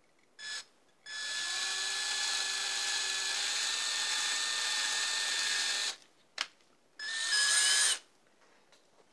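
Cordless drill with a small bit drilling screw holes through a guitar pickguard into the body. There is a short blip of the trigger, then a steady run of about five seconds with a thin whine, a click, and a second, shorter run near the end.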